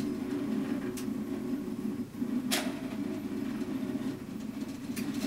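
RepRap 3D printer's stepper motors whirring as the print head and bed follow hand movements, with a few sharp clicks, the loudest about halfway through.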